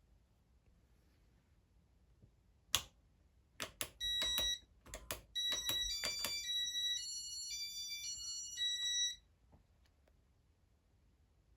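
A few sharp clicks, then a run of electronic beeps that step between several pitches for about five seconds before stopping abruptly, typical of a Casablanca Intelli-Touch ceiling fan control responding to button presses.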